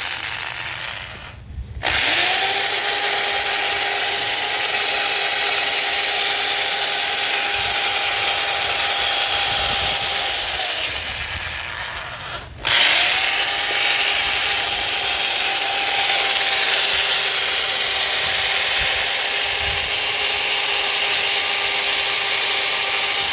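Power drill boring into a broken hardened-steel stud, its motor running with a steady whine over the grinding of the bit. It stops briefly twice, once about a second and a half in and again about halfway through after winding down, and starts again each time.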